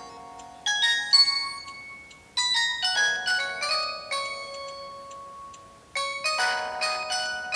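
Samsung GT-E1150 mobile phone ringtone: a polyphonic electronic melody of quick, bright, chime-like notes. It comes in three phrases that start sharply about a second in, at about two and a half seconds, and near six seconds, each fading before the next.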